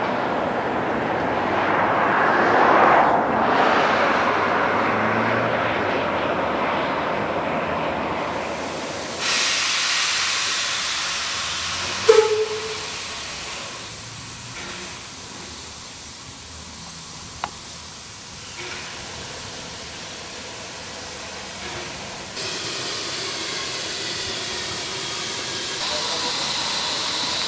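A small steam railcar running past, loudest about three seconds in. Then the steady hiss of steam escaping from an NM-class steam locomotive standing at the shed, with a brief loud pitched sound about twelve seconds in. The hiss grows louder near the end.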